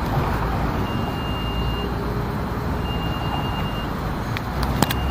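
Two steady high-pitched warning beeps, each about a second long and a second apart, from a stopped Sirietto tram with its doors open, over the steady low hum of the tram and street. A few sharp clicks near the end.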